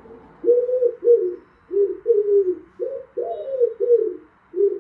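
Pigeon cooing: a string of about eight low, rolling coos in quick succession. It is a recorded clip played back through a speaker.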